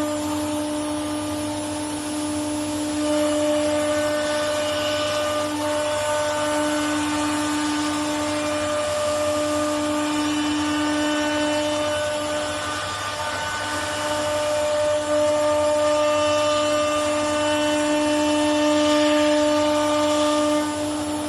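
Automatic-tool-changer CNC router spindle running at a steady high speed: a constant whine with overtones.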